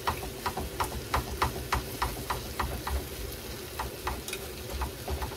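Chopsticks clacking against a frying pan about three times a second as a pan of leftover stir-fried vegetables is stirred, over a steady sizzle.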